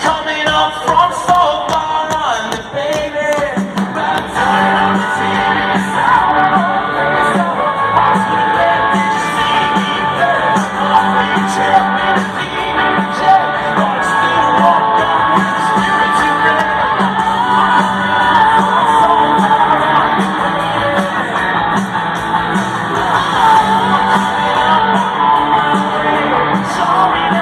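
Live rock music from a Canadian rock band: electric guitar and a male lead singer over the full band, amplified at a stadium concert.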